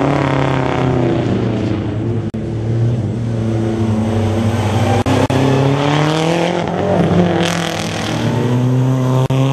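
Rally car engine revving hard through a tight street-circuit bend, the revs climbing and dropping several times, with a few abrupt breaks where the sound jumps.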